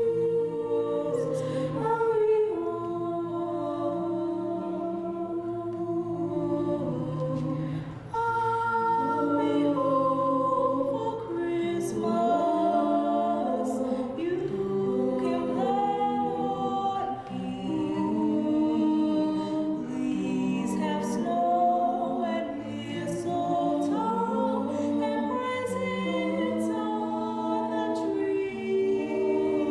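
A choir singing a cappella in several-part harmony, holding notes of a second or two each.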